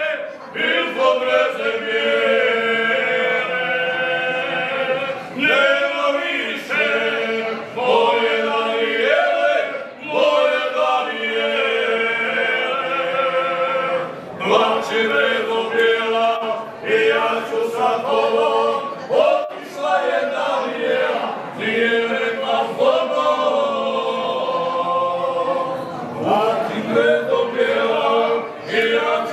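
Four men singing a folk song unaccompanied, in phrases broken by short pauses every few seconds, with one steady held note running beneath the melody.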